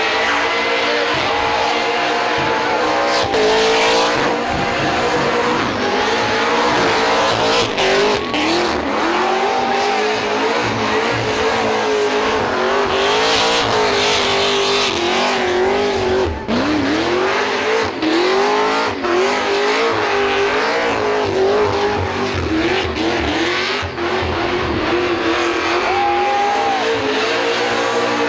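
Supercharged V8 of an HSV E Series Clubsport held at high revs through a burnout, the rear tyres spinning and squealing. The engine note wavers with the throttle, dips briefly a few times and sweeps back up about sixteen seconds in.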